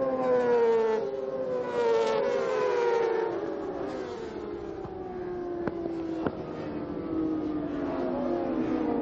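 Several 600cc racing motorcycles running at high revs, their engine pitch sliding down over several seconds and then climbing again near the end. Two short sharp clicks come a little past halfway.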